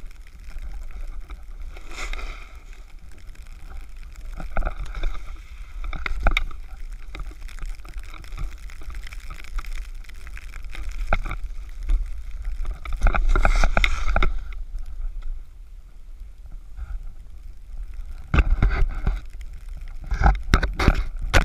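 Wind noise on a pole-mounted GoPro Hero3's microphone, a steady low rumble, with a snowboard hissing and scraping over snow in a series of swishes as it turns. The loudest swishes come about two-thirds of the way through and again near the end.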